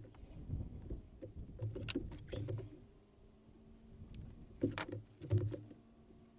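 Hand tools and gloved hands working at a boat's window frame: two short clusters of sharp clicks and knocks with dull thuds between them.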